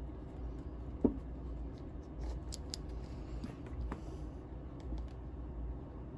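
Workbench handling sounds: a single sharp knock about a second in, then a few light clicks and a brief scrape, over a steady low hum.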